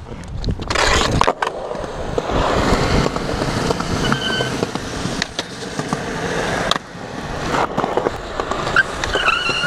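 Skateboard wheels rolling over concrete, a steady rolling rumble broken by a few sharp knocks of the board.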